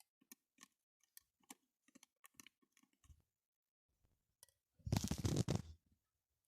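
Slime glue and glitter being stirred in a small container: a run of faint, sticky clicks for about three seconds, then a louder rustle about five seconds in.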